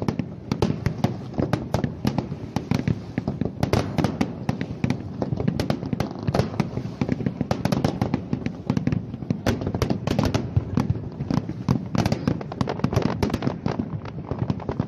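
Fireworks display: aerial shells bursting in a dense, rapid series of sharp bangs over a continuous low rumble.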